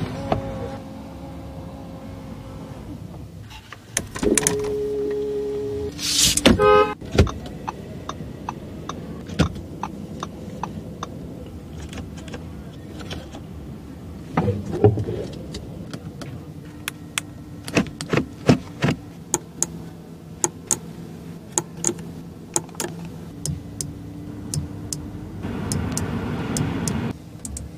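Audi A8L electric window motor running as the door glass moves, with a steady hum that stops several seconds in. A long series of sharp clicks follows.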